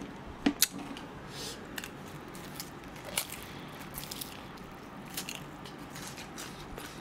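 A person biting into and chewing fried chicken close to the microphone: scattered crunchy bites and wet chewing clicks, the sharpest about half a second in and again around three seconds in.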